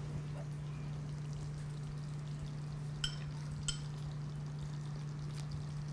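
Quiet room tone with a steady low hum. Two faint light clicks come about three seconds in, from a metal spoon touching a small ceramic bowl.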